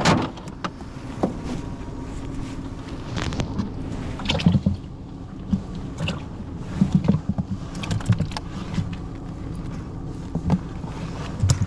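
Irregular knocks and clunks of fishing gear being handled in a boat, over a steady low hum.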